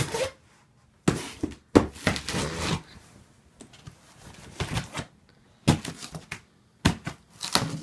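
Knife slicing through the packing tape on a large cardboard box in several short strokes, then the cardboard flaps being pulled open near the end.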